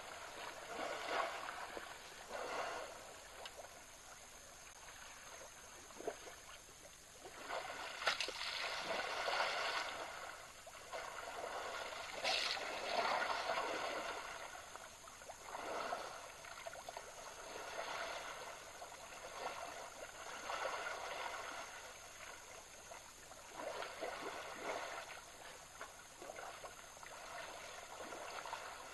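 African bush elephants splashing and sloshing as they roll and wallow in a shallow waterhole: irregular swells of churning water, with a couple of sharper splashes partway through.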